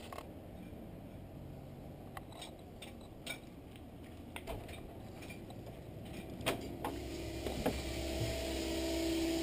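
Scattered clicks and knocks of a handheld camera being carried, over a low rumble that slowly grows louder toward the end.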